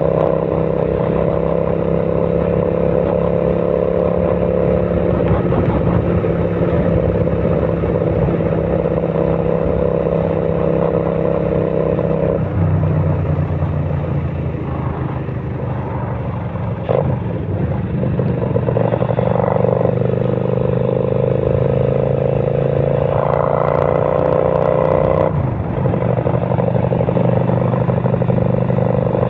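Kasinski Mirage 250 V-twin motorcycle engine running loud and steady. Its note drops abruptly about twelve seconds in, climbs back later and falls again, with one sharp click partway through.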